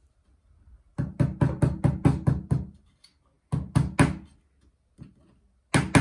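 Claw hammer tapping a small tack into the softwood top of a wooden beehive frame: quick light taps in runs, about nine starting a second in, four more a little past the middle, and another fast run beginning near the end.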